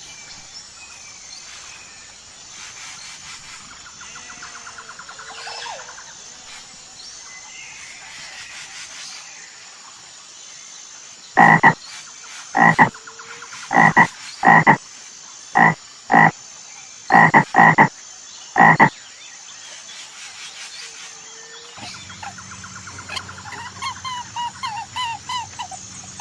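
An animal calling: about ten loud, short calls with a rich tone, mostly in pairs, in the middle of the stretch, with fainter calls around them.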